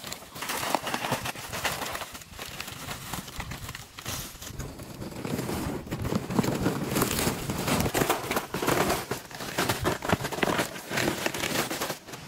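Irregular rustling and crackling, made of many small clicks and crunches.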